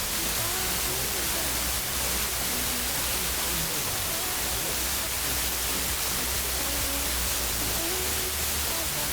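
Heavy hiss of a weak, distant FM radio signal received over a long-distance path, with faint music barely audible under the noise.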